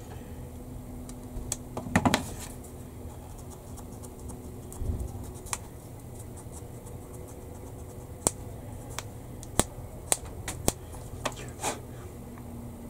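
Scattered sharp clicks and light taps of small hobby tools and plastic model-kit parts being handled, over a faint steady hum.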